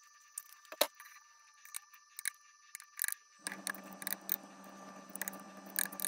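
Tin cans and a utensil clinking and scraping against a stainless steel tray as wet cat food is spooned out, in a string of sharp, irregular taps. A steady hum starts a little past halfway.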